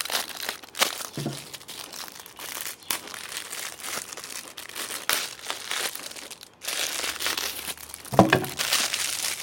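Packaging being opened by hand, crinkling and rustling irregularly with sharp crackles throughout.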